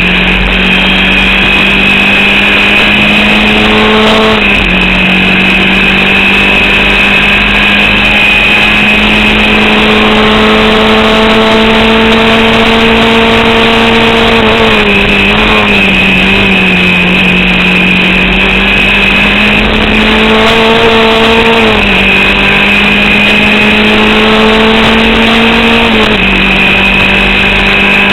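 Onboard sound of a Formula Vauxhall 8v single-seater's four-cylinder engine pulling through the gears at racing speed, its note climbing slowly and dropping back at each of a few upshifts, with a steady high whine above it. The engine is misfiring and down on power, held to about 4500 rpm by an alternator/battery fault.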